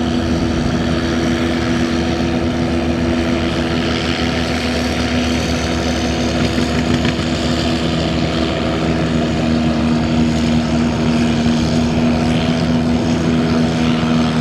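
Vintage Oliver row-crop tractor's engine running steadily under heavy load while pulling a weight-transfer sled, getting a little louder toward the end.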